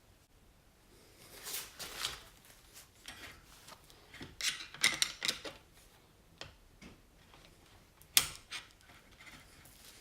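Irregular small metallic clicks and scrapes of a circlip and tools being worked against a compressed motorcycle fork spring to seat the clip in its groove, with a sharper click about eight seconds in.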